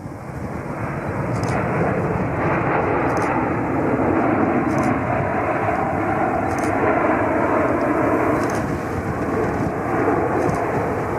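Jet aircraft engines passing close by, a loud rushing roar that swells over the first two seconds and then holds steady.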